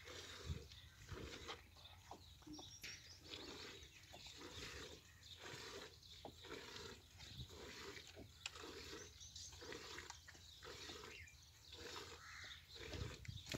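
Calf suckling at its mother's udder: faint, rhythmic sucking and swallowing, about one and a half pulls a second, with a few sharp clicks among them.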